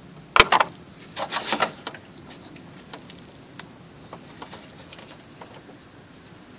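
Small hard parts being handled: one sharp click about half a second in, a quick run of clicks and rattles, then scattered light ticks, as a plastic clip and connector are worked loose to free a front crash airbag sensor.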